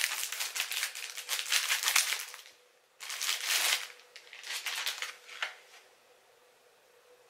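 Packaging crinkling and rustling as an item is unwrapped by hand. It comes in two stretches: one that stops about two and a half seconds in, then after a short break a few more bursts that die away by about five and a half seconds.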